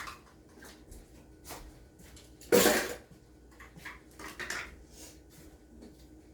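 Kitchen items being moved and set down on a counter: scattered knocks and clatters of bowls and utensils, with one louder clunk about two and a half seconds in and a few lighter clacks a couple of seconds later.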